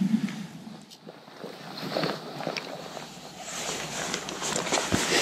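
Rustling and shuffling of waterproof clothing and gear as a person gets up from the forest floor and moves around close to the microphone, with scattered light clicks and a low thump about five seconds in.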